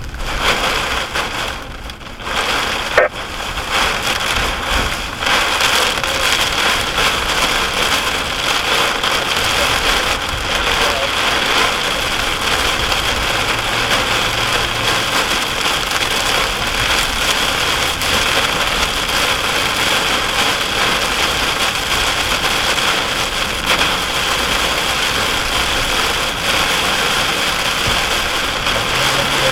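Steady heavy rain falling on a vehicle during a severe thunderstorm, with the engine running low underneath. There is a single sharp click about three seconds in.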